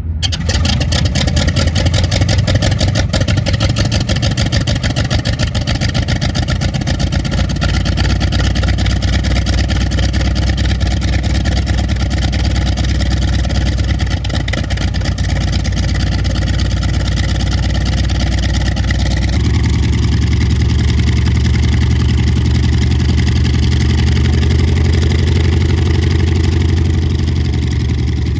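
Aircraft engines running loudly and steadily with a fast pulsing. About two-thirds of the way through the sound changes abruptly to a deeper engine note with slowly wavering pitch.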